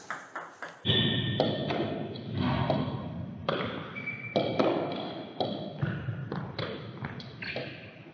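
Table tennis ball clicking off bats and the table during a rally, the hits coming at irregular intervals over a dull room rumble.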